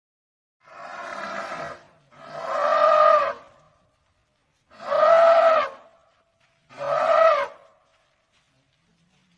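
Asian elephant calling four times, each call about a second long; the first is quieter than the three that follow.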